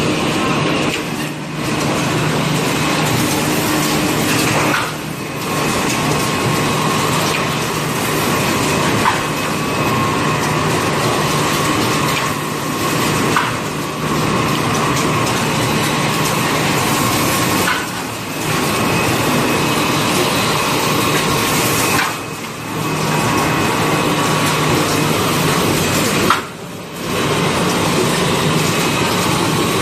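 Automatic multi-roll toilet paper and kitchen towel bundling and packing machine running on its conveyor line: a steady, loud mechanical din with a low hum, dipping briefly several times.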